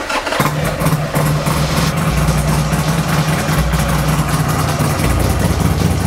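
Buell XB motorcycle's air-cooled 45-degree V-twin cranked on the electric starter and catching within about half a second, then idling steadily at around 1,250 rpm while still cold.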